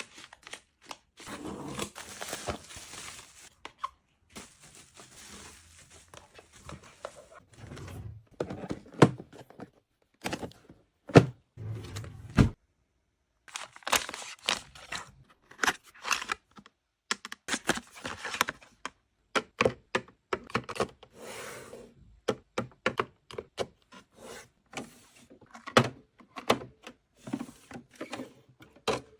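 Small objects handled and set down one after another: many sharp clicks, taps and thunks. In the first several seconds there is also rustling, as of packaging being opened.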